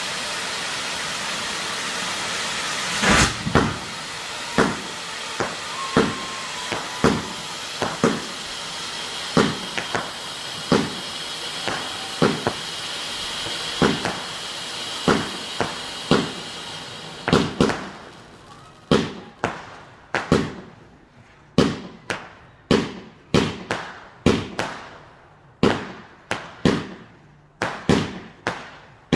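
Firework ground fountains hissing steadily. From about three seconds in, aerial firework shots bang roughly once a second over the hiss. Past the middle the fountains die out and the shots come faster, about two a second, each bang followed by a short trailing crackle.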